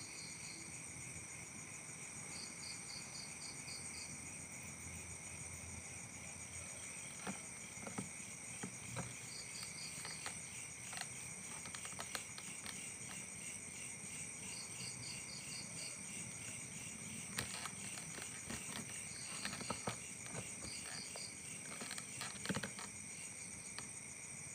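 Night chorus of crickets and other insects, steady and high-pitched, with several short series of rapid chirps. Faint scattered clicks and knocks come through now and then.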